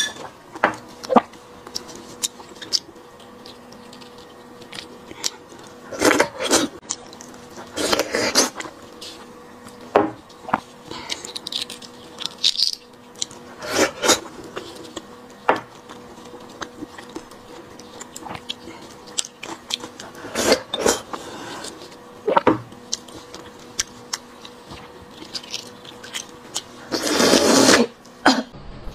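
Close-miked eating sounds: irregular slurps and sucks as beef bone marrow is drawn out of cut bones, with chewing and mouth noises between, and one longer, louder slurp near the end.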